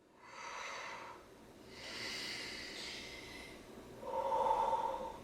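A woman's heavy, noisy breathing in discomfort: two long breaths, then a brief hum of the voice about four seconds in.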